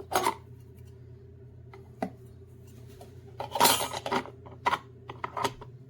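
Cups being handled and set down on a countertop: several sharp knocks and clinks, with a longer clattering scrape about three and a half seconds in.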